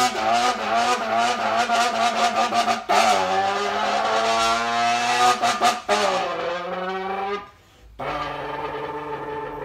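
A man vocally imitating a revving car engine, cupping a drinks can to his lips: a buzzing engine note with a rapid stutter, its pitch sweeping up and down. It breaks off for a moment about seven and a half seconds in, then comes back as a steady note.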